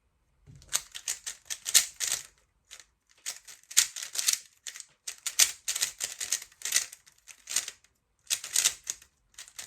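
A 3x3 speedcube being turned rapidly during a speedsolve: fast clacking of the plastic layers in quick bursts with brief pauses, starting about half a second in.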